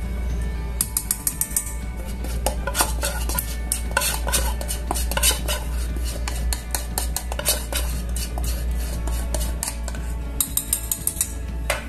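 Metal clinking and tapping in a stainless steel saucepan as a wire whisk is stirred through the liquid, with quick runs of taps about a second in and again near the end.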